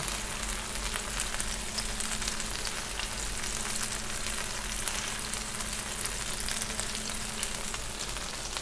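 Shredded cheddar and mozzarella with sausages sizzling steadily on a hot griddle, a continuous fine crackling hiss of the cheese frying.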